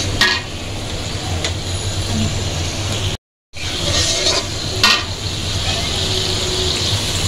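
Spice paste sizzling in hot oil in a karahi while a spatula stirs and scrapes it around the pan, with a few sharp clicks of the spatula against the pan. The sound cuts out for a moment a little after three seconds.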